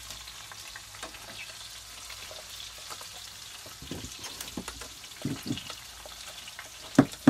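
Pork chops sizzling and crackling in a frying pan, with a few knocks of a wooden spoon stirring stuffing mix in a pot; the sharpest knock comes near the end.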